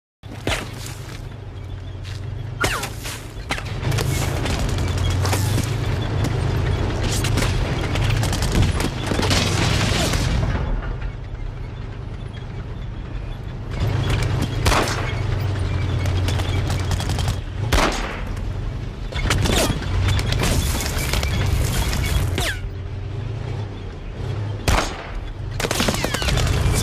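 War-film battle sound: a heavy, continuous low rumble of an advancing tank under gunfire and explosions. About a dozen loud shots and blasts come at irregular intervals, several seconds apart.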